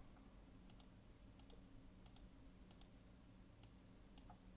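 Near silence: low room hum with faint computer clicks, mostly in pairs, about one pair every second or less.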